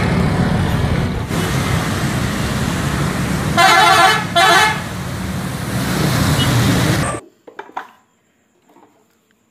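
Bus engine and road noise as a bus drives by, with its horn sounding two short blasts about three and a half seconds in. The sound cuts off suddenly about seven seconds in, leaving near silence with a few faint clicks.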